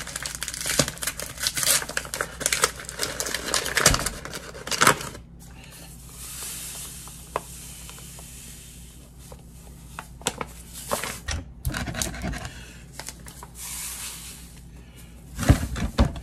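A paper bag of granulated sugar is torn open and crinkled, then the sugar pours from it in a steady hiss into a glass measuring cup. A few light ticks follow, and a heavier knock comes near the end.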